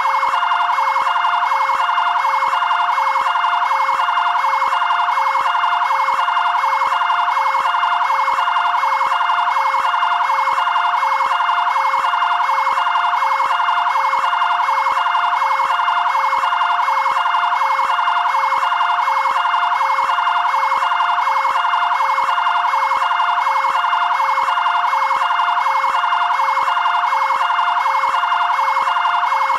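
Brazilian fire brigade area-command vehicle's two-tone siren sounding continuously, stepping back and forth between a high and a low tone at a quick, even rate.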